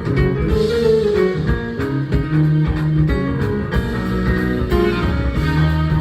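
Live instrumental jazz band playing: keyboards, bass and drums under a melodic lead line that bends in pitch early on, with regular drum hits keeping the beat.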